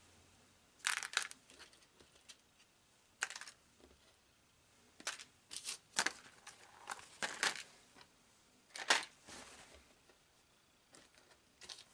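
Small model locomotive parts being handled and set into a parts container: scattered short clicks and rustles at irregular intervals.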